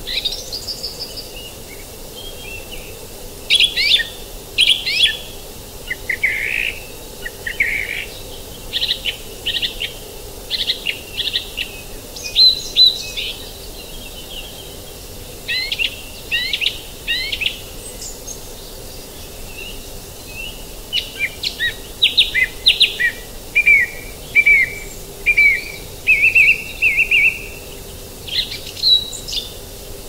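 Woodland songbirds singing and calling: many short, high chirps and trills one after another throughout, over a faint steady low hum.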